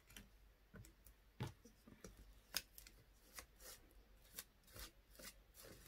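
Faint, irregular scraping and ticking of a small spatula dabbing texture paste through a plastic stencil onto paper.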